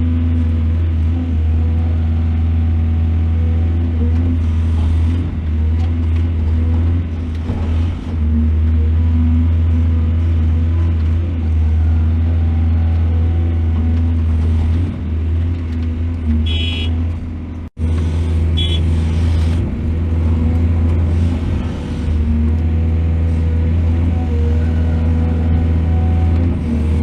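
Heavy diesel engine of a mining excavator running steadily with a deep low hum. There is a sudden momentary break about two-thirds of the way through, and short high squeals just before and after it.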